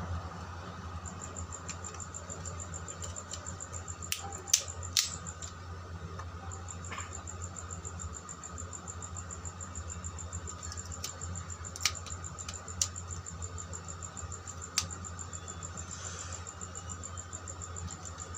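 White plastic switch and socket modules being handled and snapped into a plastic switchboard plate: a few sharp plastic clicks, three close together about four to five seconds in and three more spread between twelve and fifteen seconds, over a steady low hum.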